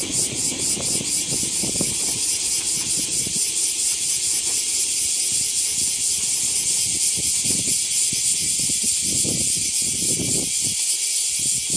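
Insects drone in a steady, high-pitched hiss. Beneath it, the low running noise of a local electric train fades as the train pulls away, with a few low swells near the end.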